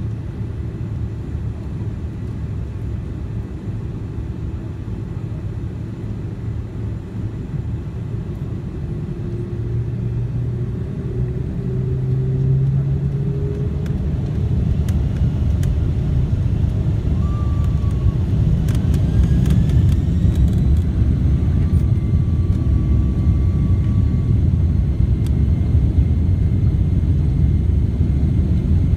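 Boeing 767-300ER jet engines spooling up for takeoff, heard inside the cabin: a rising engine tone and a rumble that grows steadily louder as the airliner accelerates down the runway.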